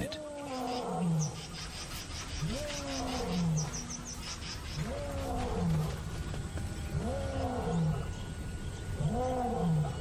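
Male lion roaring: about five long calls roughly two seconds apart, each rising and then falling in pitch with a deeper falling tail. It is a pride male's territorial roar, a clear message of ownership.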